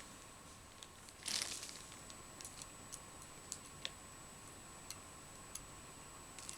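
Light clicks and taps of seashells being handled and set onto a glued bottle, with a brief rustle a little over a second in.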